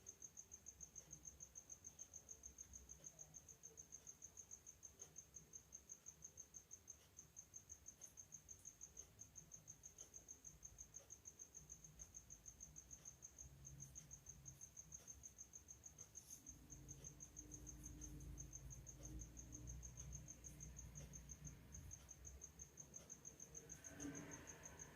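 Faint cricket chirping: a thin high-pitched pulse repeating evenly several times a second, steady throughout.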